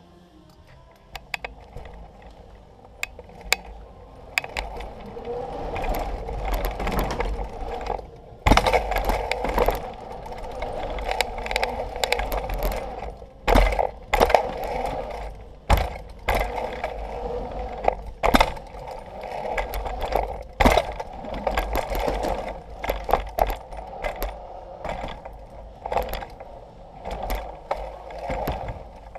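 Mountain bike ridden fast over wooden ramps and packed dirt: steady tyre rolling noise that builds after the first few seconds, broken by repeated sharp knocks and clatter as the bike hits bumps and landings.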